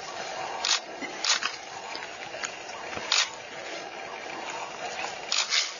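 Porcupine rattling its raised quills in about five short, dry bursts over a steady background hiss, the defensive warning a porcupine gives a predator.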